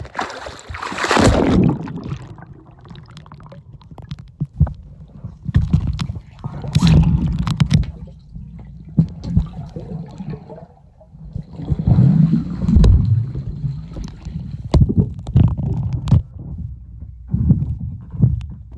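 A splash about a second in, then swimming-pool water heard from underwater: low, muffled churning and bubbling with scattered knocks.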